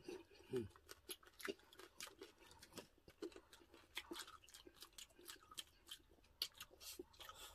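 Faint close-miked eating sounds: irregular soft clicks and crunches of chewing and of fingers handling crispy roast pork and chicken, with a short falling hum about half a second in.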